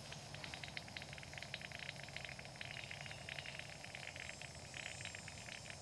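MV7400 hand-pump vacuum fluid evacuator drawing warm engine oil out through its tube from the generator's drain hose, with a faint, irregular crackling and bubbling as oil and air are pulled into the canister.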